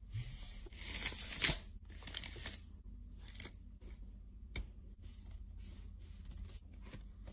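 Irregular scratchy, rustling strokes with a few sharp clicks, the loudest about a second in.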